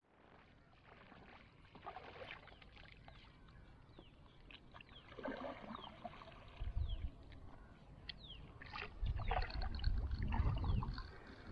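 Paddle strokes splashing and dripping as a small canoe is paddled across still water, with short high falling chirps throughout. Low rumbling bursts come about seven seconds in and again for the last few seconds, and are the loudest part.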